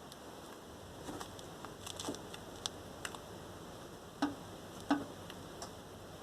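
Irregular clicks and knocks from under the hood of a VAZ 21099 as the steering wheel is turned, the two loudest about four and five seconds in. The owner suspects the steering rack is worn out.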